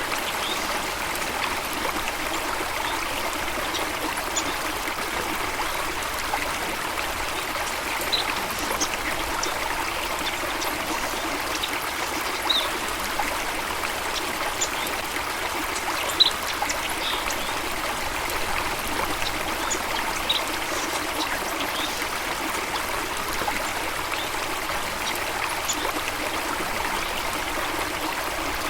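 Running water flowing steadily, like a stream or small cascade, with brief high chirps scattered every second or two.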